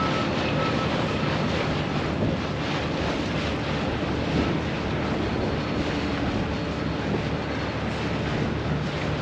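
Small fishing trawler's diesel engine running steadily as it motors past close by, with wind buffeting the microphone.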